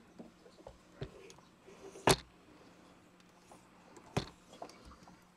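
Scattered faint ticks and three sharper clicks of a USB cable plug being jiggled against a laptop's ports, the loudest about two seconds in. The plug does not fit the laptop's ports without an adapter.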